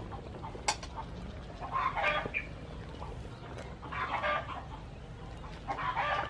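Chickens clucking nearby, three short bursts of calls about two seconds apart, over a steady low rumble. A single sharp click comes just under a second in.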